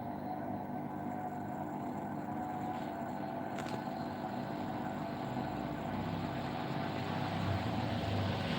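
Samsung front-load washing machine running, its drum turning with a steady motor hum and whine. It grows gradually louder and deeper over the last few seconds, as the drum speeds up.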